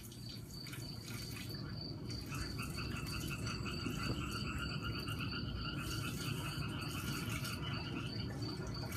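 Pond ambience from a nature documentary played through TV speakers: insects chirping with a steady, rapid high pulsing, joined about two seconds in by a fast pulsing trill that stops near the end, over a low steady rumble.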